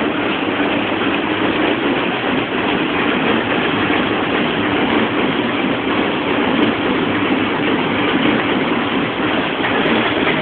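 Steady, loud rushing noise of a car running, with no music playing yet.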